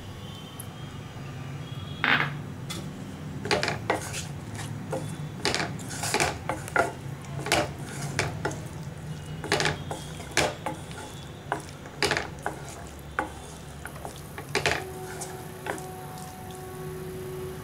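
A spoon stirring curd into cooked barley in a pan. It makes irregular clicks and scrapes against the pan.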